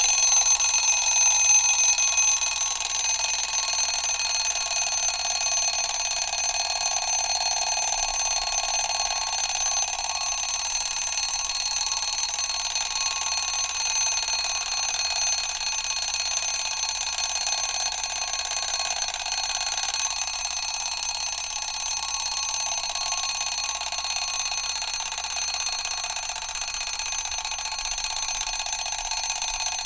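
Mechanical alarm clock going off, its hammer rattling on the bell in one continuous ring with many high, steady ringing tones, easing slightly in loudness toward the end.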